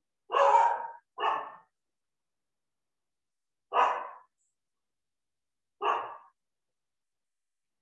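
A dog barking four times: two quick barks near the start, then two single barks about two seconds apart.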